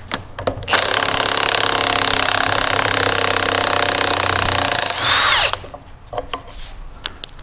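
Cordless impact wrench hammering for about four seconds as it breaks loose and runs off the nut on the end of a control arm's shaft, then a brief whirr as it spins free. A few light metal clicks follow near the end.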